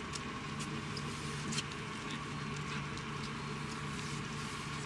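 Boat engine running with a steady hum, with a few short clicks over it in the first two seconds.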